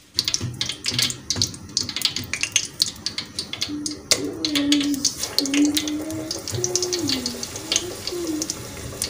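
Hot cooking oil crackling and spitting in a pot, as the first potato pinwheel samosas go in near the end. A low wavering call sounds four times in the middle.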